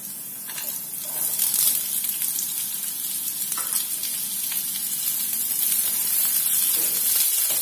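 Roughly chopped onions sizzling as they fry in hot oil in a nonstick kadai, stirred with a spatula; the sizzle grows louder over the first second or two as the onions go in.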